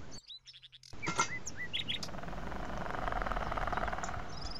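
Small birds chirping: several short, rising calls about a second in and one more near the end, over a steady rustling hiss.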